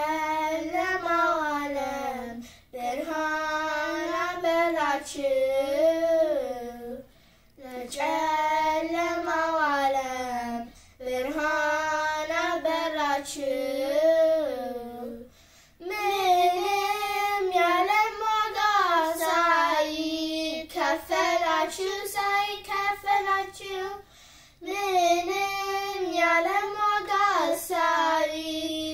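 Two girls singing an Ethiopian Orthodox hymn (mezmur) together in unison, unaccompanied, in phrases of a few seconds with short breaks for breath between them.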